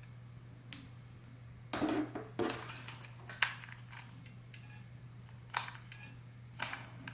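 Light knocks and clicks of a brass wax seal stamp and a hot glue gun loaded with sealing wax being handled on a table, the gun squeezing out a blob of wax, over a steady low hum. About six separate sharp knocks, the loudest cluster about two seconds in.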